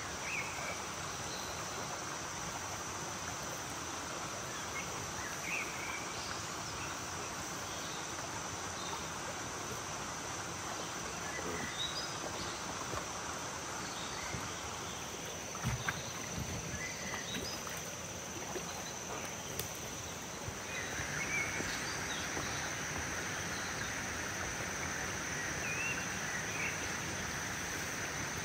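Water sprinkling from a plastic watering can's rose onto leafy vegetables, the hiss louder from about two-thirds of the way in, over a steady high insect drone and scattered bird chirps. A single low knock about halfway through.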